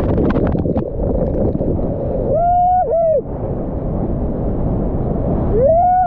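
Loud rushing whitewater at the foot of a waterfall, heard on a kayaker's POV camera, with water splashing over the microphone in the first second. Twice a person lets out a long whooping yell, rising, held and then falling: about two and a half seconds in and again near the end.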